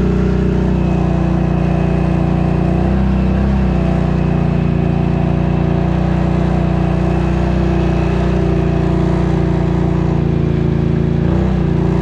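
Engine running steadily at a constant speed, its pitch dipping briefly about three seconds in and again near the end.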